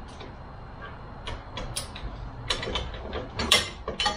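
Irregular clicks and clatters of hard plastic and metal parts of a frunk-opener and hood-hinge assembly being handled and fitted by hand. The clicks come sparsely at first, then more often, with the loudest about three and a half seconds in.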